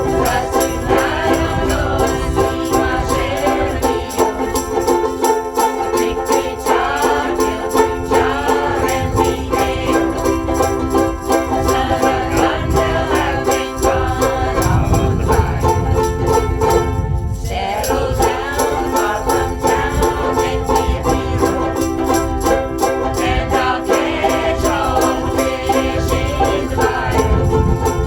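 A ukulele group strumming chords and singing together in unison, with a brief break in the playing about 17 seconds in.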